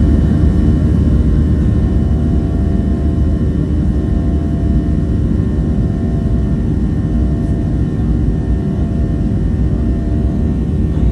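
Steady, loud cabin noise of an aircraft in flight: a deep engine rumble with several steady tones running over it.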